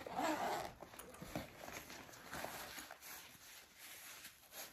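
Zipper on a nylon disc golf backpack being pulled open in several short pulls, the first the loudest.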